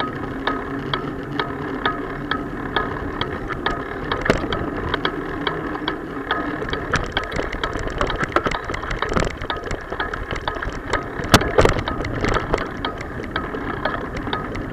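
Riding noise picked up by a bicycle-mounted action camera: a steady rumble with a regular tick about two or three times a second. A cluster of sharper rattling knocks comes a little past the middle.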